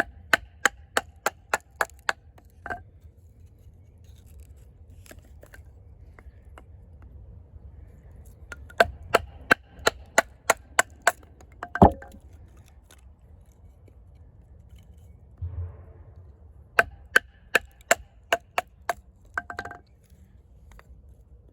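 Baton striking the spine of an Eafengrow EF-143 AUS-10 steel fixed-blade knife, driving it through wood to split kindling. The strikes come in three quick runs of about eight light taps each, roughly three a second, with one louder crack about twelve seconds in.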